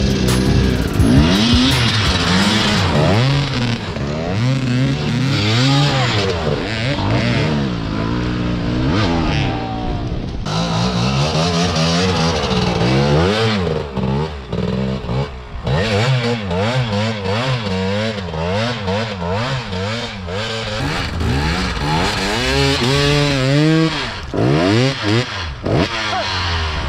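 Two-stroke dirt bike engines revving up and down over and over, their pitch rising and falling as the bikes ride through snow, with a few abrupt breaks between stretches.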